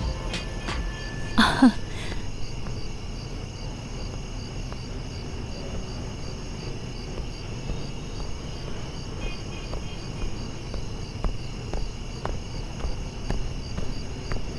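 Crickets chirping steadily in a night ambience over a low background rumble, with one short louder sound about a second and a half in.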